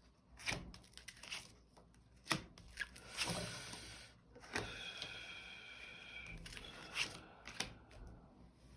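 Tarot cards being handled: several sharp card clicks and a short rustle of cards sliding against each other.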